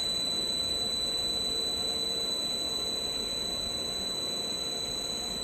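Electric drive motors of a sigma mixer extruder running, its double sigma blades and discharging screw both turning forward: a steady high-pitched whine over a lower hum and a faint machine rumble.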